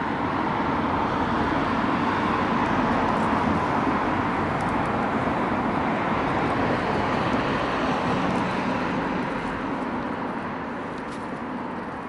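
Road traffic noise: a passing vehicle's engine and tyre noise swelling over several seconds, then slowly fading.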